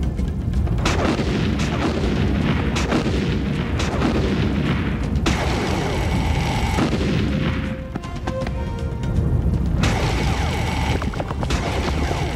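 Cartoon sound effects of repeated explosion booms and laser blasts from a spaceship attack, over background music.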